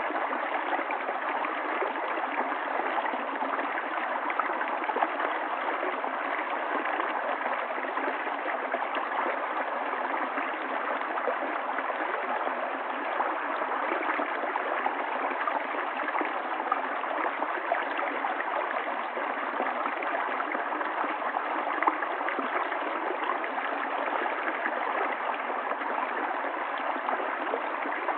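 River water flowing and gurgling steadily, with small splashes and trickles through it.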